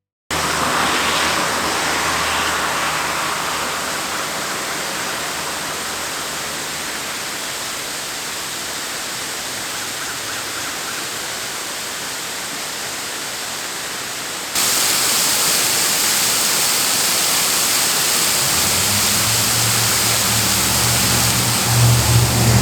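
Bridal Veil Falls' water rushing in a steady, even noise that jumps louder and brighter about two thirds of the way through. A low engine hum from a vehicle on the road beside the falls comes in over the last few seconds.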